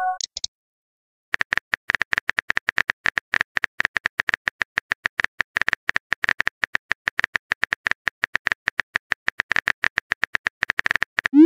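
Simulated phone keyboard typing: a rapid, even stream of light key-tap clicks as a text message is typed, starting about a second in. It ends with a short rising swoop.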